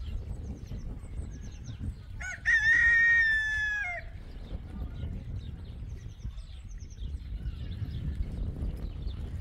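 A rooster crows once, about two seconds in: one long call lasting nearly two seconds that drops in pitch at the end. Small birds chirp faintly before it, over a steady low rumble.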